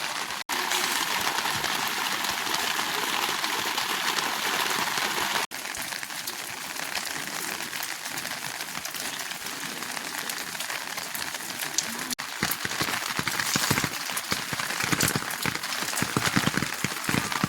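Heavy rain falling, a steady hiss of downpour. From about twelve seconds in, the patter of drops grows louder and more uneven.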